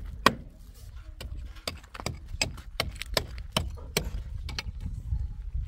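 A series of sharp knocks, roughly two a second and unevenly spaced, over a steady low rumble.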